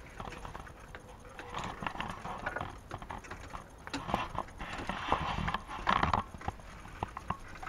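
Footsteps on paving slabs: an irregular run of short knocks and scuffs, with a few louder steps around the middle.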